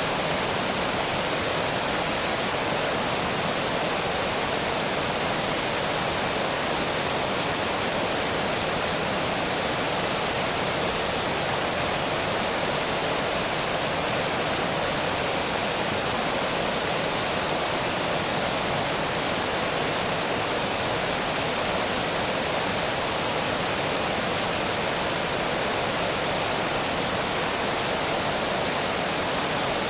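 Water pouring over a small dam, a steady unbroken rush of falling water.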